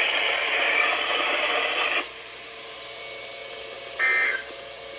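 Weather-radio hiss of static that cuts off sharply about two seconds in. About two seconds later comes a short, shrill burst of EAS/SAME data tones, the first of the three end-of-message bursts that close the weekly test.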